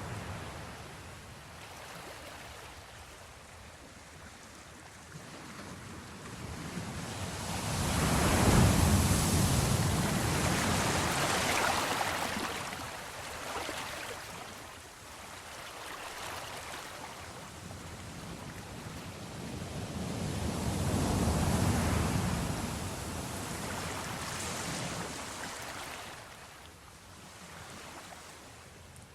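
Ocean waves breaking on a shore, two big waves swelling and washing in with the quieter hiss of surf between them.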